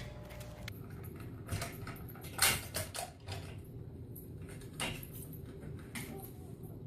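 Several short knocks and clicks over a low steady background hum, the loudest about two and a half seconds in.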